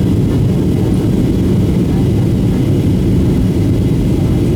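Steady, loud cabin rumble inside a Southwest Boeing 737-700 in flight: engine and airflow noise, deep and unchanging, with a faint high whine above it.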